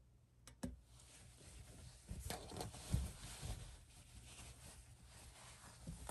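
Wool ponte knit fabric rustling and brushing as it is handled and draped, with two sharp clicks about half a second in, a soft thump about three seconds in, and more clicks near the end.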